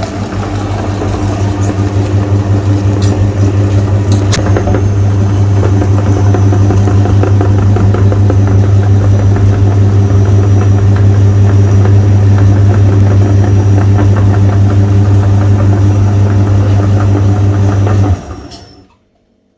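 Electric meat grinder motor running with a loud, steady low hum and a fast rattle, switched off near the end and winding down to silence.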